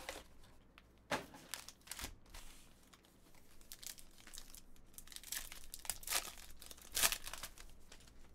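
Foil wrapper of a Panini Select football card pack crinkling and tearing as it is pulled from the box and opened by hand, in a run of short bursts, the loudest about seven seconds in.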